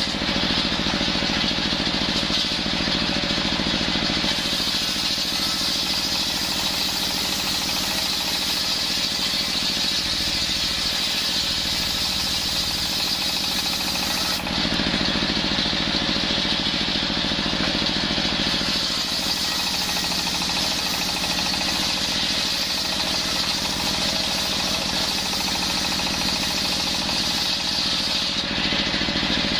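Belt-driven table circular saw running steadily while ripping long coconut-wood boards into rafters. Two long cuts, each a harsher hiss of blade through wood, with a few seconds of the saw running free in between, about halfway through.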